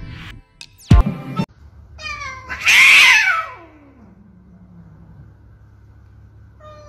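A cat gives one long, loud yowl that falls in pitch and fades out over about two seconds, with a shorter falling meow near the end. Just before it, about a second in, comes a short, sharp falling swish.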